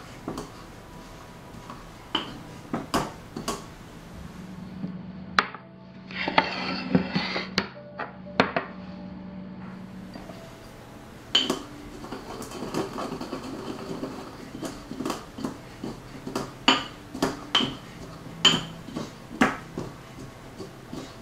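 Metal pestle striking in a small metal mortar, cracking black peppercorns: sharp knocks at irregular intervals, with a denser rattle lasting about two seconds a third of the way in.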